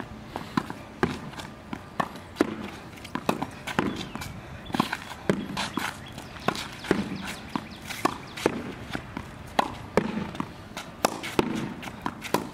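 Tennis rally against a practice backboard on concrete: a steady run of sharp knocks, several a second and often in quick pairs, from the racket striking the ball, the ball hitting the board and bouncing off the pavement.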